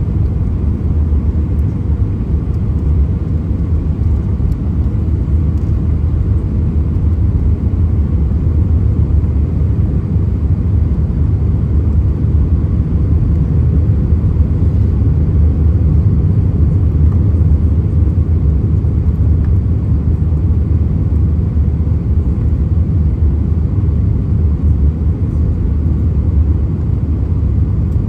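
Steady low rumble inside the cabin of an Airbus A319-131 airliner, even throughout with no sudden thumps or surges.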